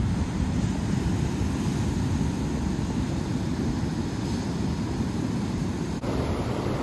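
Ocean surf breaking and washing over a rocky shore, a steady low wash with wind buffeting the microphone. The sound changes abruptly about six seconds in, the hiss of the surf becoming brighter.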